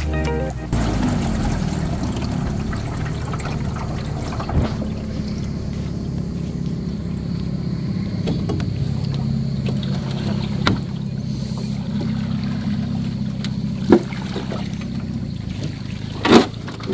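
A boat's motor running steadily at low speed, a low even hum, with water trickling and lapping. A few short knocks break in, the loudest near the end.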